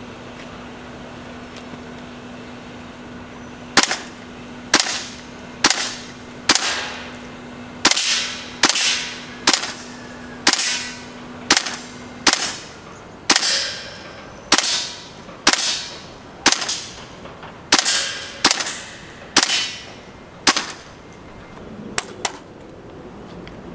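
WE SCAR gas-blowback airsoft rifle firing about twenty single semi-auto shots, roughly one a second, each a sharp crack with a short tail. Near the end come two quick clicks as the rifle is handled.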